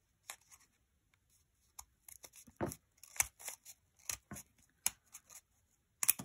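Scissors cutting through several layers of folded paper in a run of short, irregular snips.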